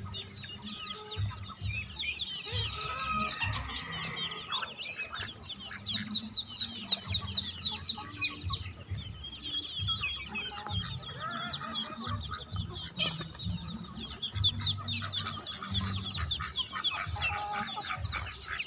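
Farmyard flock of Muscovy ducklings and chickens: many high, short peeps overlapping in a constant chorus, with clucking mixed in.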